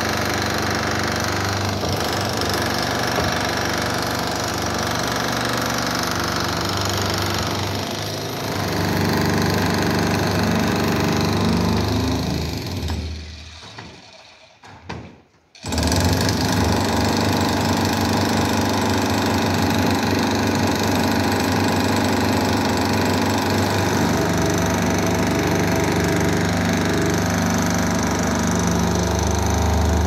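Electric demolition hammer running continuously as it breaks up brick and concrete roofing. It fades out for a couple of seconds about halfway through, then starts again abruptly.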